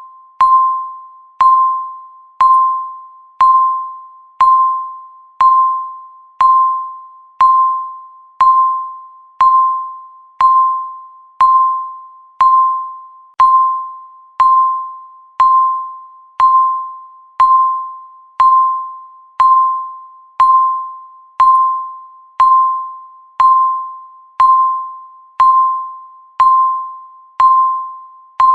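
Countdown timer's tick sound: one sharp, bell-like ping every second, each a single clear tone that rings briefly and fades before the next.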